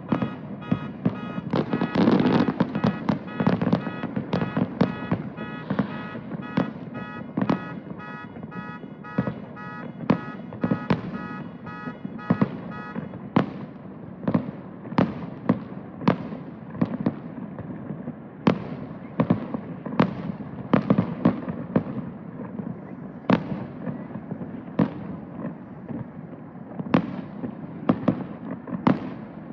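Fireworks bursting: a dense run of sharp bangs throughout, loudest about two seconds in. A rapid electronic beeping sounds over the first half and stops about halfway through.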